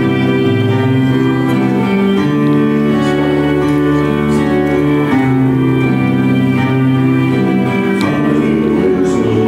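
Live small band playing an instrumental passage of a slow ballad: a fiddle plays long held notes over acoustic guitar and upright bass.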